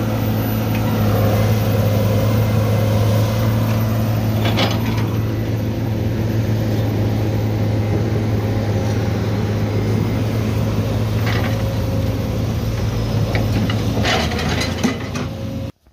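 Heavy diesel engines of an excavator and a loaded tipper truck running steadily in a low drone, with a few short knocks during the work. The sound cuts off suddenly just before the end.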